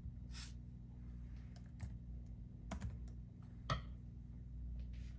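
Laptop keyboard keys being pressed: a handful of separate, irregular taps, one louder tap about three-quarters of the way through, over a low steady hum.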